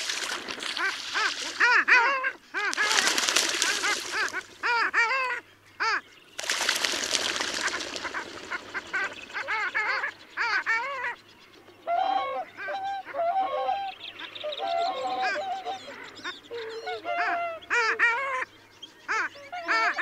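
A flock of long-tailed ducks calling: many overlapping nasal, yodelling calls, each note rising and falling. Twice in the first half a few seconds of rushing noise rise over the calls.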